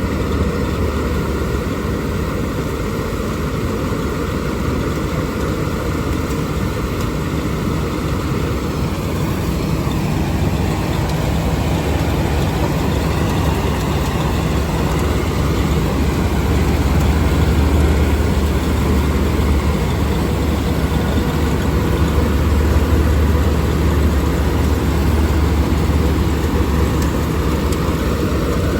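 Panesar G-60 mini combine harvester's engine running steadily. About ten seconds in it grows louder and fuller, then eases back a little near the end.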